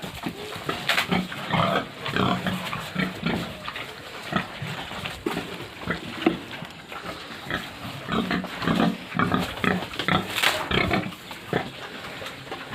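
Several pigs grunting and squealing over one another, with harsher, louder squeals now and then: hungry pigs clamouring to be fed.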